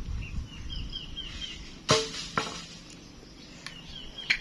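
Two sharp knocks about two seconds in, half a second apart, as the concrete cover of a water tank is handled, over a bird chirping in quick runs of short falling notes.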